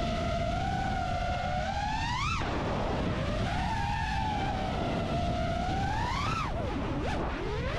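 FPV racing drone's motors whining, the pitch rising and falling with throttle over a steady rush of propeller and wind noise. The whine climbs sharply and drops off at about two and a half seconds, climbs again at about six and a half seconds, then swoops down and back up near the end.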